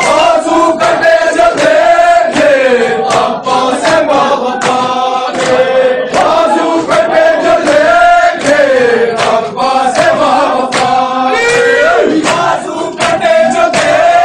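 A crowd of men chanting a Shia mourning lament (noha) together, their singing gliding up and down, over a steady rhythm of sharp hand slaps from chest-beating (matam).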